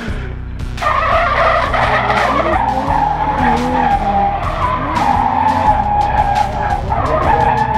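Drift cars' tyres squealing: a loud, sustained screech that starts abruptly about a second in and settles into a steady high tone. Engine revs rise and fall underneath it.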